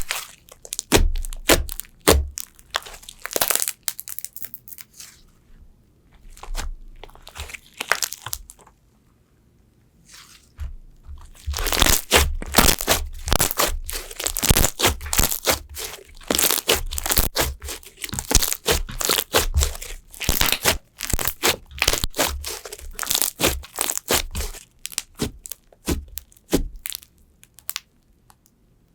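Crunchy slime being squeezed and pressed, giving dense runs of crackling and popping clicks. There is a near-quiet pause of a few seconds about a third of the way in, then thick crackling through most of the rest.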